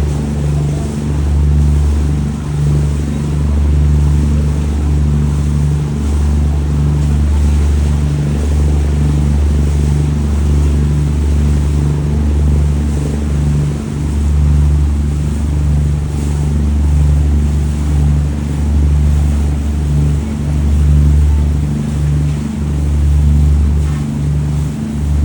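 Boat engine running at a steady low drone.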